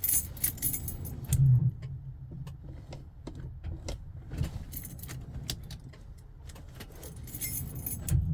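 Car keys jangling and clicking at the ignition as the key is worked, with no engine cranking or running: the battery is dead.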